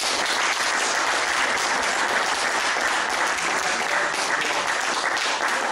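Audience applauding: a steady, dense clapping from a roomful of people.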